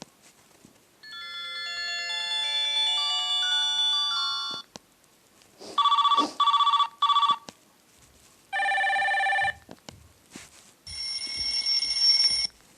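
Ringtones of a Sigma Mobile Comfort 50 mobile phone played one after another: a short electronic melody of quick notes, then three short beeps, then two separate brief electronic ring tones.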